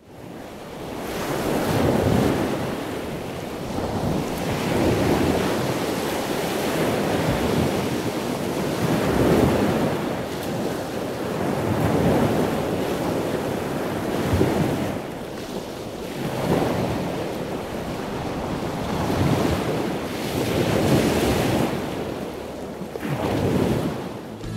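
A continuous rushing noise that swells and fades every few seconds, with no tune or voice in it.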